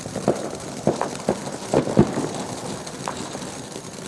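Fireworks going off: a string of about six sharp pops and bangs at irregular spacing, the loudest about two seconds in.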